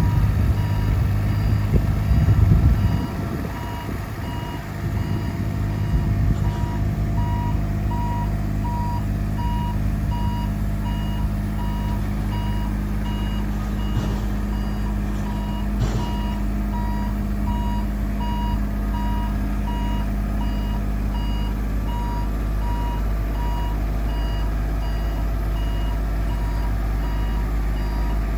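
Electronic warning beeper on a Tadano NUL060-2 truck-mounted aerial work platform, beeping at an even rate over the steady running of the truck's engine. The engine is louder and rougher for the first three seconds or so, then settles.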